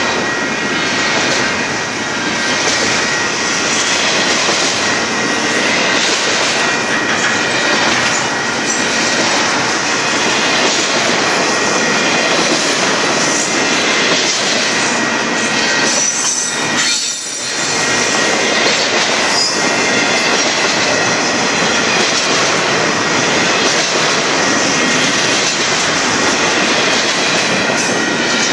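Double-stack container cars of a freight train rolling past a grade crossing: steady rumble and clatter of steel wheels on rail, with a thin steady high tone over it. The sound dips briefly a little over halfway through.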